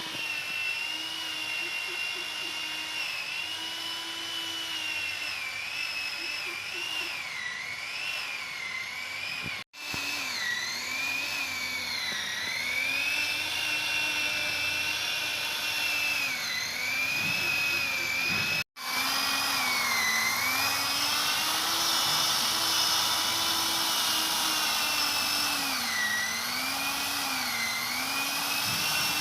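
A small motor running with a whine whose pitch wavers smoothly up and down the whole time; it breaks off for an instant twice.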